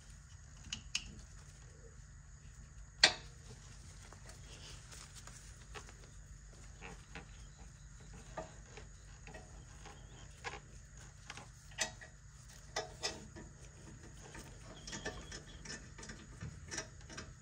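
Irregular clicks and light metallic taps of hand tools and brake hardware as the caliper bolts are started by hand, with one much sharper click about three seconds in, over a steady low hum.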